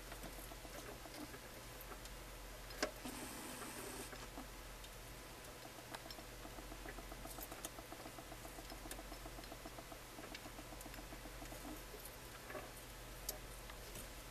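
Faint scratching, pattering and scattered sharp clicks from hermit crabs' legs and shells working over lettuce and rock in a plastic tank. A fast run of fine ticks comes from about six to twelve seconds in, over a steady low hum.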